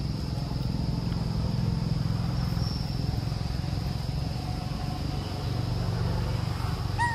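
An engine running steadily at low revs, a low rumble with a fine even pulse, under a steady high insect drone. A brief high squeak comes near the end.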